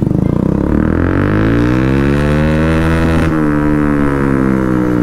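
Bajaj Pulsar single-cylinder engine through an aftermarket SC Project exhaust, pulling away. The note rises in pitch for about two and a half seconds; a little past three seconds in it drops back, and the pitch slowly falls as the bike rolls on.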